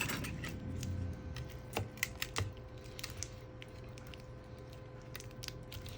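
Light, irregular clicks and taps of small parts being handled during a laptop battery swap, with a faint steady hum underneath.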